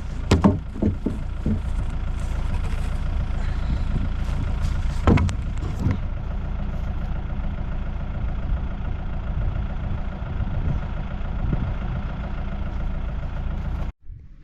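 Engine running steadily at idle, with a few knocks and thumps in the first second and again about five seconds in; the engine sound cuts off abruptly near the end.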